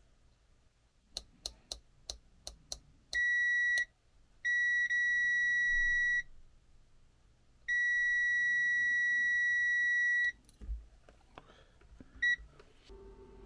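Klein Tools digital multimeter's continuity beeper sounding a steady high beep three times, each longer than the last (under a second, nearly two seconds, over two and a half seconds), then a short blip near the end. The beep means the probe has found a low-resistance path between a microcontroller pin and the crystal. Before the beeps come light clicks of the probe tip tapping on the pins.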